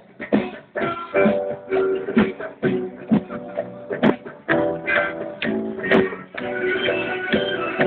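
Live band music with a horn section and keyboard, steady held chords cut by frequent sharp percussion hits.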